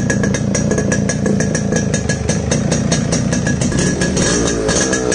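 1990 Yamaha RX100's air-cooled two-stroke single-cylinder engine, fitted with a flute-type silencer, idling with an even, rapid beat just after its first start of the day.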